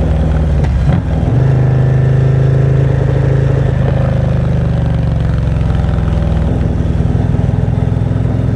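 Harley-Davidson Low Rider ST's Milwaukee-Eight 117 V-twin running under way, heard through its exhaust. The note dips briefly about a second in, then pulls strongly, rising a little before easing back to a steady run.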